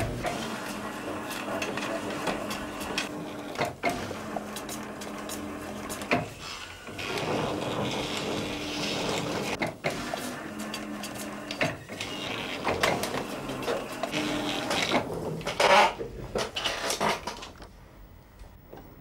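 Flatbed film editing table running film through its plates and rollers: a motor hum with a mechanical clatter that stops and starts again several times as it is worked by hand, falling quiet near the end.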